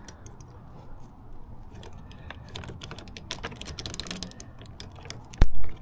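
Small plastic clicks and rattles of a scooter's handlebar throttle being worked loose and taken off. A single loud thump comes near the end.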